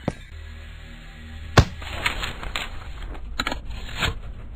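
Cartoon sound effects: a sharp bang about a second and a half in, then a scattered run of light clicks and knocks over a low hum.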